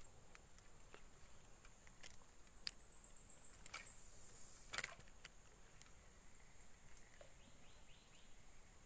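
A very high, fast animal trill whose pulses slowly fall in pitch over about three seconds. It is followed by two sharp clicks of handling noise, about four and five seconds in.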